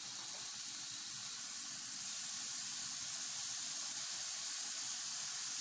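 Boneless chicken breast fillets sizzling gently in hot oil in a frying pan: a steady hiss that grows slightly louder.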